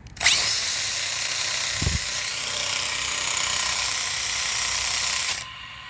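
Ford F-150 alternator spun up fast: a loud, steady whirring grind with a high whine that rises quickly at the start and then holds, stopping abruptly about five seconds in. The noise is the sign of a bad alternator, which the owner takes for the source of the engine noise he hears with the belt on.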